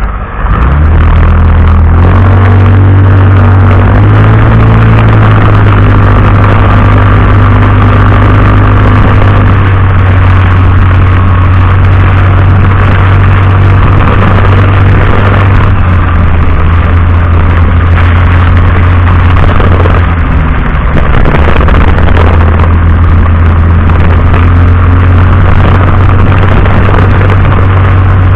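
Vehicle engine running while driving, picked up loud and slightly overloaded by a dashcam microphone, its pitch climbing as it accelerates a few seconds in, over a steady hiss of road and weather noise.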